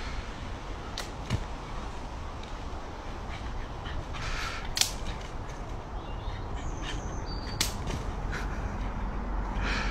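Leafy tree branch rustling and twigs cracking as a dog hangs from it and tugs it down. A few sharp snaps are spread through it, and there is a longer swish about halfway through.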